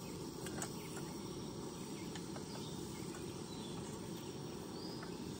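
Cakes frying in hot butter in a skillet over a gas camp stove burner: a steady sizzle and hiss, with a few light clicks of metal tongs against the pan.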